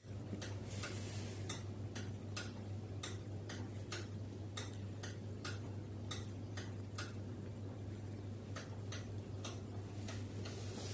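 A series of light, sharp clicks at uneven spacing, one or two a second, over a steady low hum.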